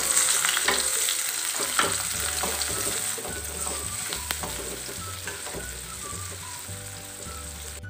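Chopped chilies, garlic and shallots sizzling in hot oil in an aluminium wok, stirred with a metal spatula that scrapes and taps against the pan. The sizzle slowly grows quieter.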